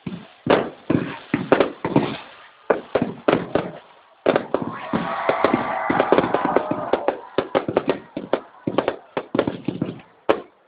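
Aerial fireworks bursting in a rapid series of sharp bangs, several a second at times, with a dense stretch of crackling shells in the middle.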